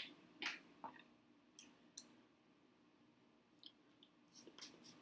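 Faint, scattered clicks of eating seafood at close range, from mouth sounds and shells being handled: a few single clicks in the first two seconds and a quick run of clicks about four and a half seconds in.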